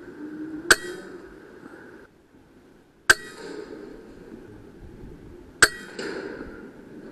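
.22 PCP air rifle firing three times, each a single sharp crack, about two and a half seconds apart. A fainter knock follows the third shot a moment later.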